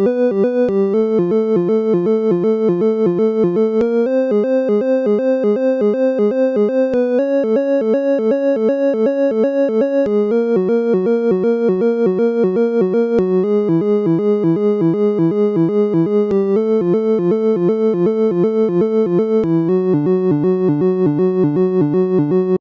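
Instrumental synthesizer music: sustained keyboard chords pulsing about four times a second, moving to a new chord roughly every three seconds, then stopping abruptly.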